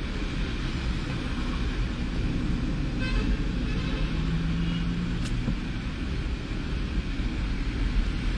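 Steady road noise heard from inside a moving car: a low rumble of engine and tyres on a wet road.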